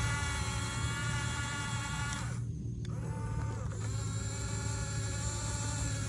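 Huina 1569 RC bulldozer's small electric track motors and gearboxes whining as it pushes sand. The whine cuts out briefly a little past halfway, then winds back up with a shifting pitch.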